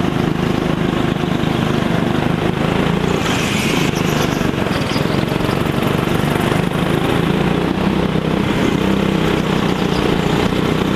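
Go-kart engine running under power as the kart laps the track, heard onboard, a steady low engine note that shifts a little in pitch. A brief hiss rises over it about three seconds in.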